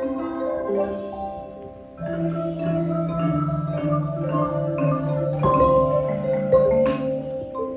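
Music on mallet percussion, xylophone-like notes with several pitches sounding together, changing chords every second or two and thinning out near the end.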